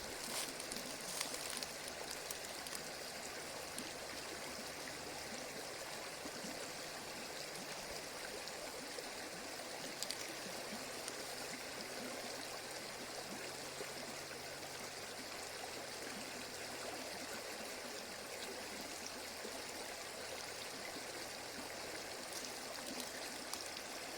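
Steady rush of water flowing in a stream.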